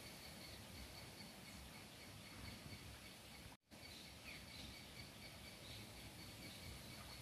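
Near silence: faint outdoor ambience of a steady high insect hum, with a few faint bird chirps in the second half. The sound cuts out completely for a moment about halfway through.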